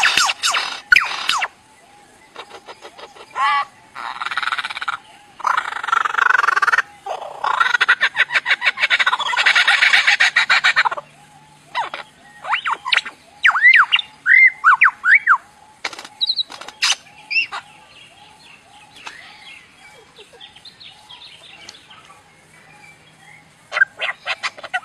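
Lyrebird singing a mimicry medley: rapid harsh rattling and buzzing phrases for the first ten seconds or so, then a run of clear whistled notes that rise and fall, then softer warbling, with rapid rattling again near the end.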